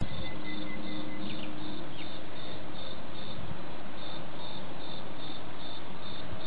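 A cricket chirping at an even rate, about two to three chirps a second, over a steady background hiss. There is a brief click at the very start.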